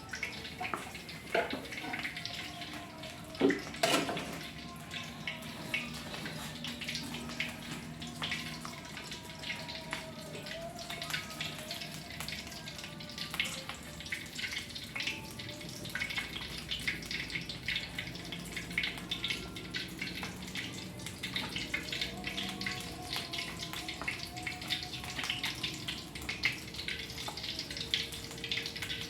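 Water running and splashing into a basin or sink, with much small clatter and two sharp knocks about four seconds in.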